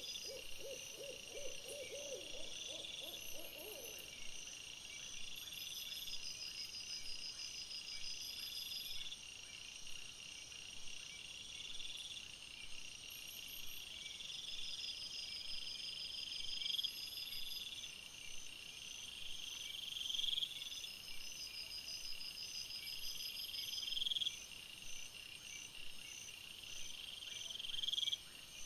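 A quick run of about eight low hoot-like calls in the first four seconds, over steady, rhythmic high chirping of night insects that swells and repeats every few seconds.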